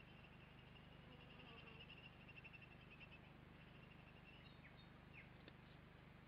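Near silence with a faint, rapid, high-pitched chirping trill that stops about two-thirds of the way through, followed by a few faint clicks, over a steady low electrical hum.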